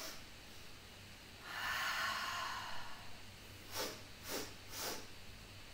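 A woman breathing out slowly and steadily for nearly two seconds, then taking three quick, sharp sniffs in through the nose about half a second apart: the 'bunny breath' yoga breathing exercise.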